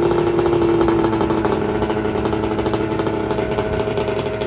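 Ski-Doo 600 RS snowmobile's two-stroke twin held at high, steady revs, sagging slightly near the end, its studded track spinning and grinding on a pickup truck's roof.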